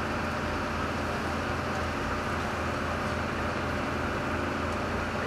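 Steady drone of fire engines' diesel engines running at idle, with an even hiss over it.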